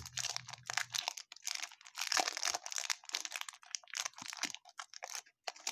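Crinkling and rustling of a baseball card pack wrapper being handled and torn open, in quick irregular crackles.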